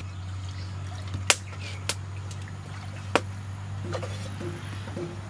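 Three sharp clicks and knocks in the first few seconds, with a few fainter ones later, over a steady low hum: pots and firewood being handled at a clay wood-fired hearth.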